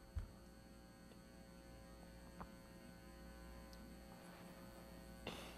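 Near silence: a steady low electrical mains hum under the room tone, with one faint click about a quarter second in.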